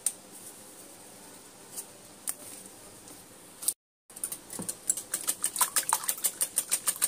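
Eggs being beaten with a fork in a bowl: a few scattered taps, then, from a little past halfway, a fast run of sharp clicks of the fork against the bowl, several a second.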